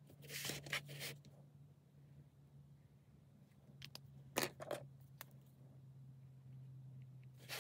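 Sketchbook paper and pens being handled on a cutting mat, heard as short scratchy scrapes and rustles: a cluster near the start, another about four seconds in, and one near the end. A steady low hum runs underneath.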